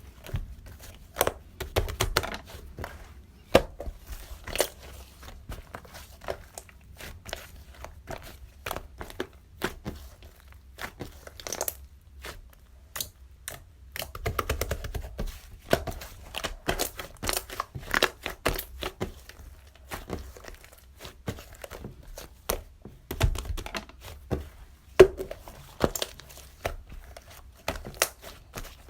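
Irregular crinkling and tearing sounds with many small clicks and taps, as something crackly is handled and torn.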